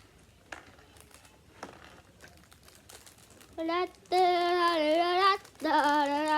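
Faint crinkling and clicking of packaging being handled, then about three and a half seconds in a child starts singing, holding long notes that slide up and down.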